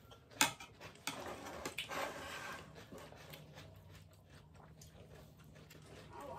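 Eating and food-handling noises at a table: a sharp click about half a second in and another about a second in, then soft rustling and handling sounds that grow quieter.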